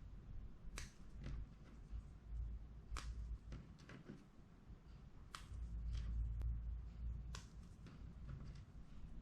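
Plastic LEGO Technic chain links being snapped together by hand, a sharp click every second or two, with soft rustle from handling the parts.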